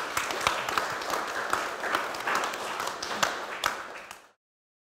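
Audience applauding, a dense patter of many hands clapping that cuts off abruptly a little over four seconds in.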